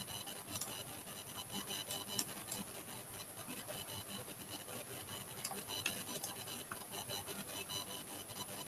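Stylus pen rubbing and scratching across a graphics tablet's drawing surface, with scattered light clicks over a faint steady hiss.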